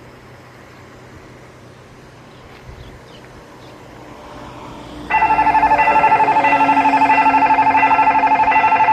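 Railway level-crossing warning bell switching on about halfway through: a loud electronic ringing with a fast, even pulse, the signal that a train is approaching and the crossing is closing. Before it, only a low background hum.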